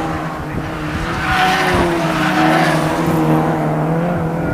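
Ford Fiesta race cars' engines at racing revs as the cars pass through a bend, the engine note shifting up and down in pitch and loudest in the middle.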